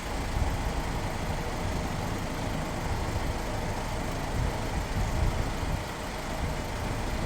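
A vehicle engine running steadily, a continuous low rumble.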